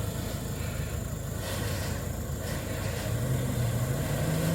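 An engine running with a steady low rumble; about three seconds in its tone starts rising as it speeds up.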